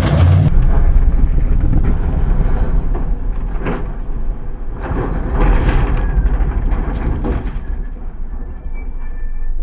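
Loud, low rumble of off-road race vehicles, with a few brief swells and duller sound after a cut about half a second in.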